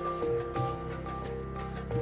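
Soft background music with sustained notes over a steady low bed.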